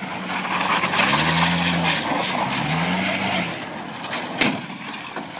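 Road vehicle noise on a car's dash-cam: a loud hiss of tyre and road noise for about three seconds, with a low tone rising and falling over it several times. A single sharp bang comes a little over four seconds in.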